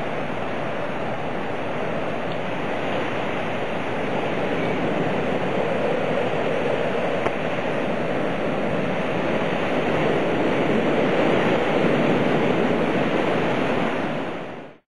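Storm wind blowing through trees, with rain: a steady rushing noise that swells a little toward the end and then fades out.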